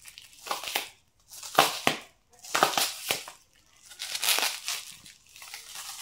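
Clear plastic packaging crinkling and tearing as it is picked at and pulled open by hand, in four rustling bursts about a second apart.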